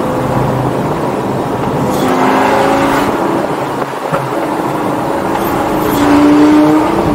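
Straight-piped V10 of a 2004 Lamborghini Gallardo pulling while driving, heard from inside the cabin. The engine note rises and drops a few times, loudest about six seconds in.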